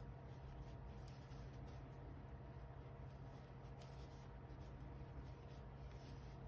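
Faint, irregular scratchy rustle of a metal crochet hook drawing yarn through stitches while slip-stitching, over a steady low hum.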